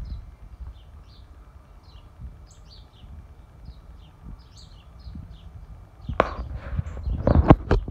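Small birds chirping in the background, many short high chirps over a low outdoor rumble. About six seconds in comes a louder burst of rustling and knocks, the loudest part, lasting almost to the end.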